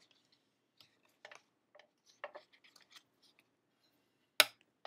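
Card stock being folded and its creases pressed down by hand on a cutting mat: short, soft paper rustles and scrapes, then one sharp tap a little over four seconds in.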